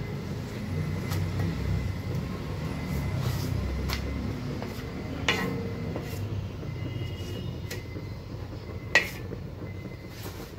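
Wooden spatula pressing and turning rotis on a cast-iron pan, with light taps and two sharp knocks against the pan, about five seconds in and near the end, over a steady low rumble.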